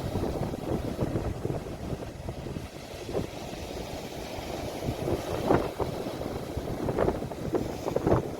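Sea waves washing in a steady rumble, with wind buffeting the phone's microphone and a few brief louder splashes in the second half.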